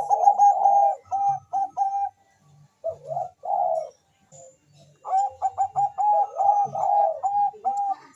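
Zebra dove (Bangkok perkutut) singing its cooing song in phrases of quick repeated notes at one steady pitch. The first phrase ends about two seconds in, a short one follows around three seconds, and a longer run starts about five seconds in and goes on almost to the end.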